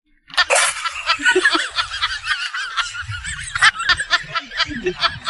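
Snickering laughter, a fast, wavering, high-pitched chatter that starts after a brief silence and goes on throughout.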